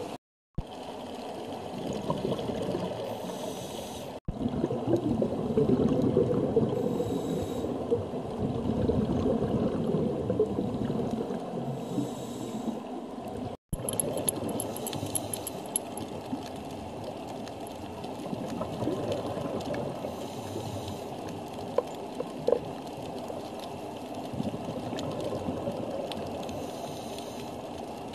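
Muffled underwater water noise picked up by a diver's camera, a steady low rushing with no clear pattern. It is broken by a few brief total dropouts where clips are cut together.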